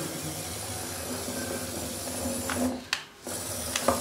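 Small geared electric drive motor of a homemade RC truck whirring steadily while the truck is test-run, with a couple of sharp clicks near the end.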